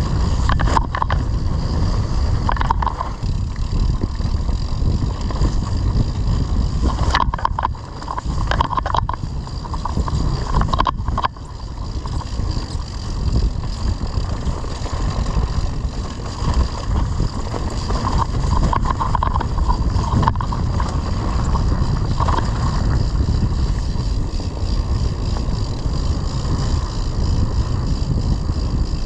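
Wind buffeting and rumbling on a mountain bike rider's action camera during a ride, with the bike rattling over rough ground and a cluster of knocks between about seven and eleven seconds in.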